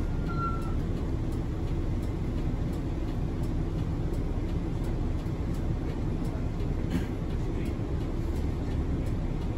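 Steady low rumble of a city bus's engine and road noise, heard from inside the cabin as it drives along; a thin high tone stops just under a second in.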